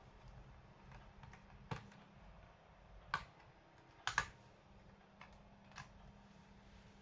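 Dell Latitude E5440 laptop being handled during a RAM swap: a handful of separate sharp plastic clicks and light knocks, the loudest a quick double click about four seconds in.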